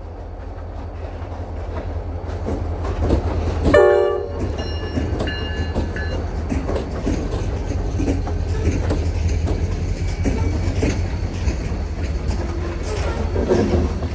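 Two diesel freight locomotives pass close by, their engines rumbling and growing louder over the first few seconds, with a brief horn note about four seconds in. The freight cars then roll past with steady wheel clicking and clatter over the rail joints.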